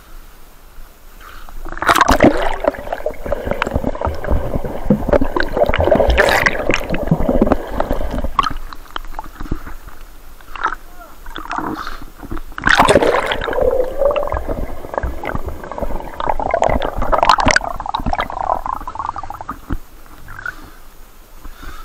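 River water sloshing, splashing and gurgling right against a camera microphone held at the surface as a swimmer moves through the water, the camera dipping in and out. Two long stretches of splashing, the first starting about two seconds in, the second after a short lull about halfway through.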